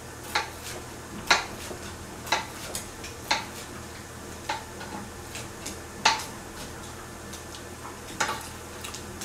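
Kitchen knife cutting crisp, dried white bread into cubes on a plastic cutting board: a sharp knock each time the blade goes through to the board, about once a second at an uneven pace.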